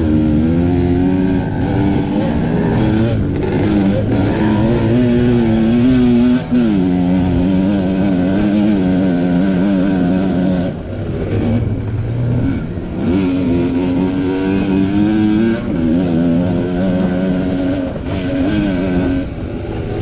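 Kawasaki KMX125's single-cylinder two-stroke engine, fitted with a V-Force 3 reed valve, running under way with the revs rising and falling with the throttle. The revs drop briefly a few times.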